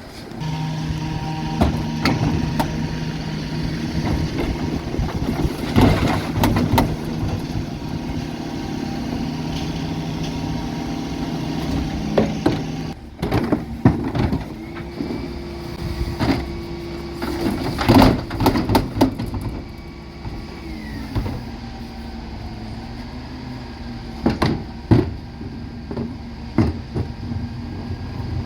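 Dennis Elite 6 refuse truck working a bin collection: the engine runs at raised revs with a steady hum for about the first half, with repeated knocks and clatters of wheelie bins on the Terberg bin lift and body. In the second half the hum drops away and a whine rises, holds and falls as the hydraulics cycle, among more bangs.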